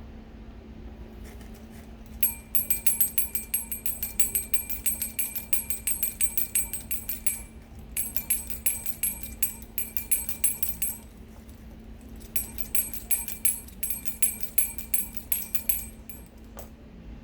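A high-pitched bell struck rapidly over and over with a bright metallic ring, in three bursts of a few seconds each, over a faint steady hum.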